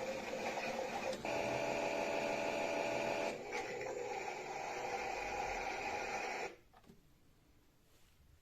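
Theo Klein 9213 toy Bosch washing machine playing its built-in washing-machine sound effect through its small speaker. The sound changes about a second in and again after about three seconds, then cuts off suddenly a little over six seconds in.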